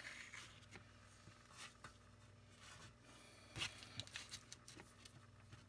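Near silence: a faint steady low hum, with a few light clicks and taps from small parts being handled, mostly from about three and a half seconds in.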